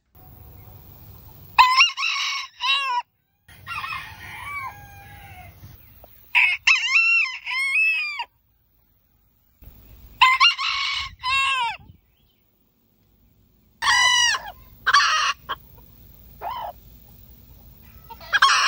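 Roosters crowing one after another, a series of separate cock-a-doodle-doo calls, each a second or two long. Sudden silent gaps fall between some of the crows.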